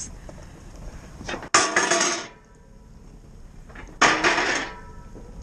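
Two loud metallic clanks with a short rattle, about two and a half seconds apart, as the vehicle's wheels roll onto a portable metal bridge laid across a crack in the lake ice.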